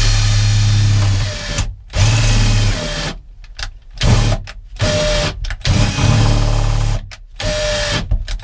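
Electric drill boring a hole through the campervan's side wall: it runs steadily for about a second, then is started and stopped in about six short bursts, each spinning up before cutting off.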